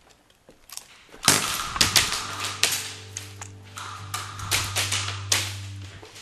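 Airsoft guns firing in quick, irregular volleys, with BBs cracking against hard surfaces; the firing starts about a second in. A steady low hum runs underneath from about two seconds in until near the end.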